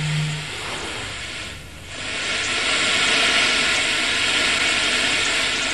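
Steady hiss of electronic noise from an instrumental transcommunication apparatus over a loudspeaker; it dips briefly about a second and a half in, then comes back louder.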